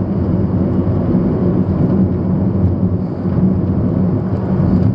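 Car driving along a road: a steady low engine and tyre rumble.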